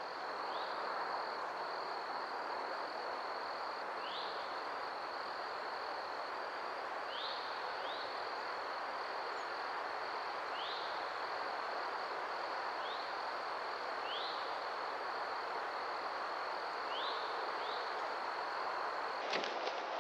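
Steady rushing wind, with a continuous high, rapidly pulsing insect trill and short rising chirps repeating every second or two. Near the end the rushing stops abruptly and a few sharp clicks follow.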